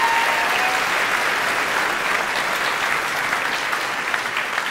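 A theatre audience applauding, a dense steady clapping that eases off slightly toward the end.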